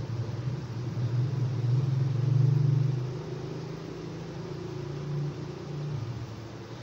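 A low engine rumble, swelling to its loudest about two and a half seconds in and dying away near the end.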